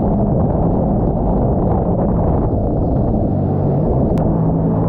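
Jet ski engine running steadily at speed, mixed with the rush of water and spray from the hull cutting through chop.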